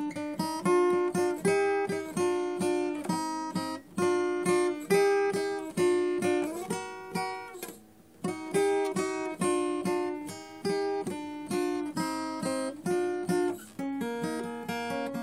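Acoustic guitar playing a picked melody over chords, in short phrases with brief pauses about four and eight seconds in.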